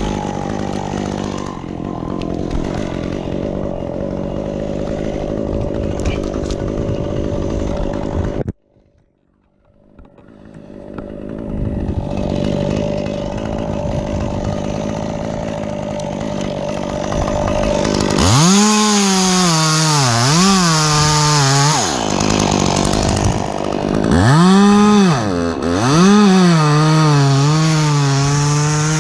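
Stihl chainsaw engine running. The sound cuts out abruptly about eight seconds in and builds back up a couple of seconds later. From about eighteen seconds the saw is revved hard, its pitch rising and falling again and again.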